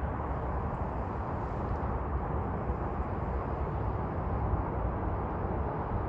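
A steady, low outdoor rumble and rush, even in level, with no distinct bird calls standing out.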